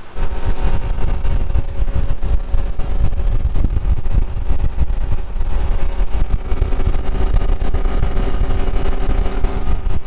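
Speedboat engine running steadily at speed, with wind buffeting the microphone in a heavy, fluttering low rumble.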